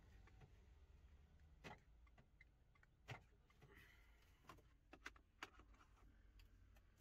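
Near silence inside a parked car, broken by a few faint, scattered clicks.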